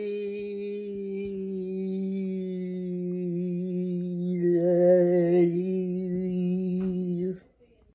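One long held vocal note, chant-like, sinking slightly in pitch at first. It turns rougher and wavering about halfway through, then cuts off suddenly near the end.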